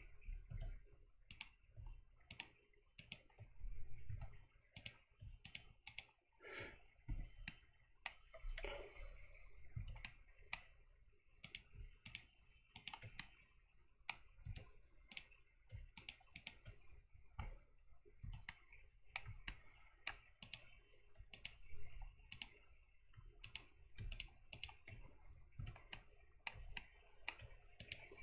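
Faint, irregular clicking of a computer mouse and keyboard keys, about two clicks a second.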